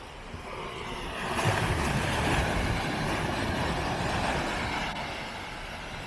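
Sea surf swelling and washing over a rocky shore, building for a few seconds and then fading, with wind rumbling on the microphone.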